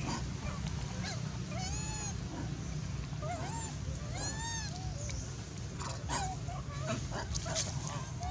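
Baby long-tailed macaque calling: a series of short, high, arching coos and whimpers, coming more often in the second half.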